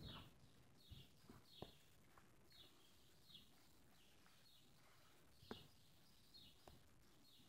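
Near silence with faint, high bird chirps, short downward notes repeated one or two a second, and a few soft knocks scattered through.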